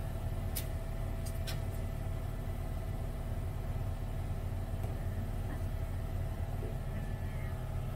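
Pet hair dryer running steadily through a hose, blowing air onto a wet dog: a low rumble of airflow with a faint steady whine. A few sharp clicks about half a second and a second and a half in.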